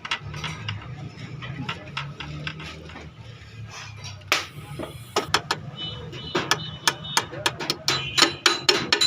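Metal tools and engine parts clinking and tapping during piston and ring work on an engine, a string of sharp taps that comes quicker and louder in the second half, with brief ringing clinks of metal.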